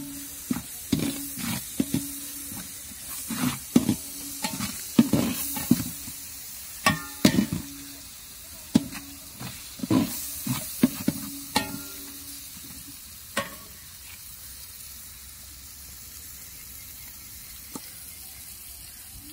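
Steel ladle scraping and knocking against a large aluminium cooking pot as a thick onion-tomato masala is stirred, many strokes ringing the pot briefly, over a soft sizzle of the frying masala. The strokes stop about 13 seconds in, leaving only the steady sizzle.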